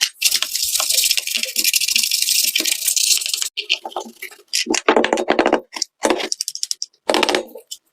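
A brush scrubbing plastic keyboard keycaps with a dense scratchy sound for about three seconds, then the keycaps clicking and clattering against each other.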